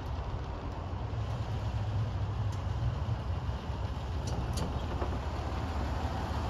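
1954 Chevrolet pickup truck's engine running at low speed with a steady low rumble as the truck approaches, growing a little louder.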